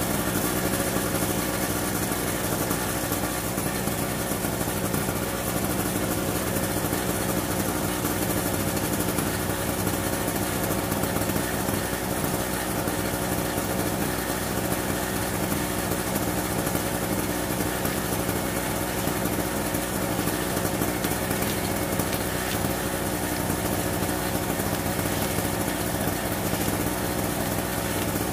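Small two-stroke engine of a Harbor Freight Storm Cat portable generator running steadily.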